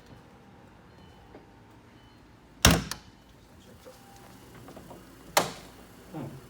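Two solid thumps of car doors being shut, about two and a half seconds apart.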